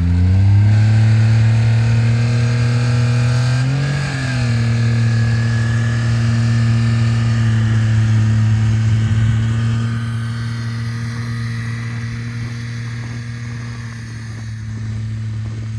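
Snowmobile engine revving up, then running at a steady speed, with a brief dip in engine speed about four seconds in. The sound grows gradually fainter over the last third.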